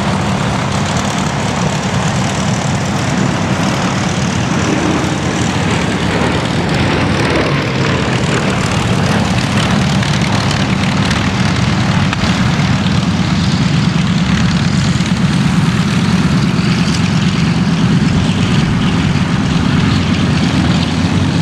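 The twin Bristol Mercury radial engines of a Bristol Blenheim Mk I running steadily, growing a little louder in the second half.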